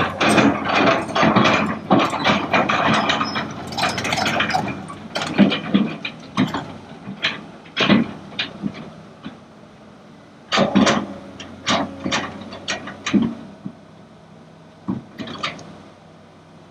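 Kobelco excavator's diesel engine running under repeated metallic clanks and knocks, closely spaced for the first several seconds and then coming singly and more sparsely, with a cluster again past the middle.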